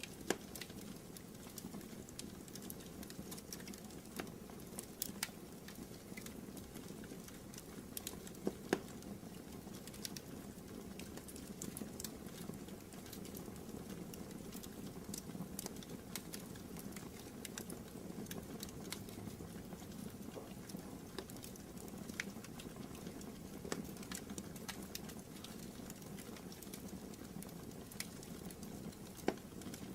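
Wood fire burning in a fireplace: a steady low rush of flames with scattered sharp crackles and pops, a few of them louder.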